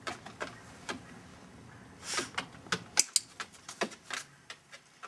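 Handling noises: a series of sharp clicks and taps, the sharpest about three seconds in, with a short rustle about two seconds in.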